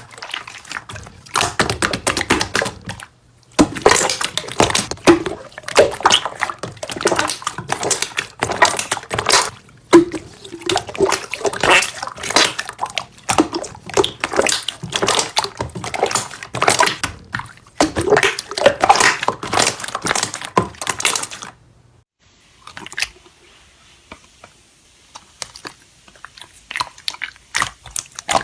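Slime being squished and worked by hand: a dense run of wet clicks and pops that stops about 21 seconds in, followed by fainter, sparser crackles.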